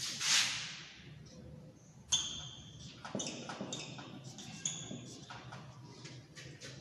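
Marker pen scratching and squeaking across a whiteboard in a series of short writing strokes, with a brief swish at the start and sharper squeaks from about two seconds in.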